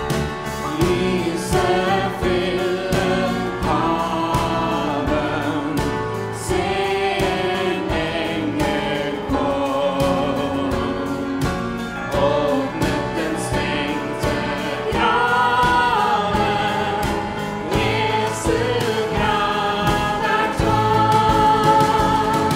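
Four women singing a hymn in Norwegian together, backed by a worship band of electric bass, keyboard and drum kit.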